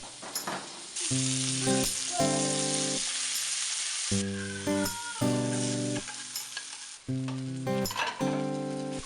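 Food sizzling in a hot frying pan, with occasional stirring. Short, evenly spaced pitched notes sound over the sizzle about once a second.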